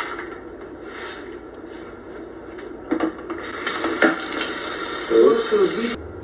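Kitchen work sounds: a few light knocks and clatters of utensils and dishes, then from about halfway a steady hiss that cuts off suddenly near the end.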